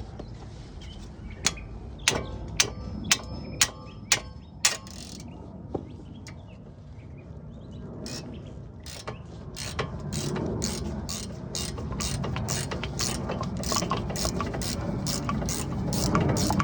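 Ratchet wrench clicking as a socket turns a bolt on the brake assembly: a handful of sharp clicks about half a second apart, then from about halfway a faster, even run of clicks that grows louder.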